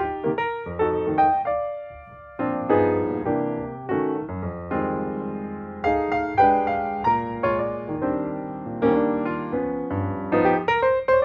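Background piano music: a keyboard playing a melody of struck, decaying notes over chords.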